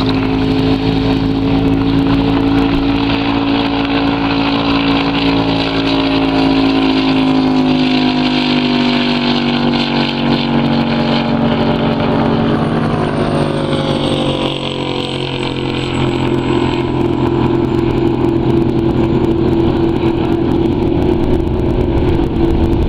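Ski race boat engine running hard at high speed, a loud steady engine note whose pitch sags slowly over several seconds, dipping in level about two-thirds of the way through before holding steady again.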